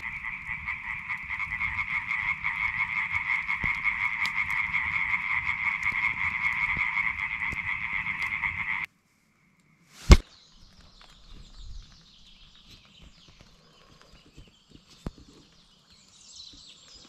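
A dense chorus of many frogs calling together, a steady rattling din that cuts off suddenly about nine seconds in. After that it is nearly quiet, with one sharp click about a second later and faint high chirps and hiss near the end.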